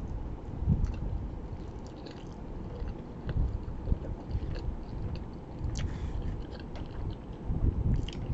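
A person chewing a mouthful of pizza, with irregular soft mouth sounds and small clicks. It is louder about a second in, near the middle and near the end.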